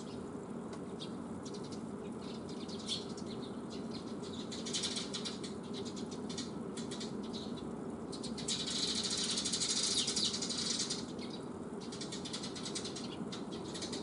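Eurasian tree sparrows fluttering and hopping around an apple: scattered light ticks of wings and feet, with a dense flurry of rapid wingbeats about two-thirds of the way through, the loudest part, lasting two or three seconds. A steady low background rumble runs underneath.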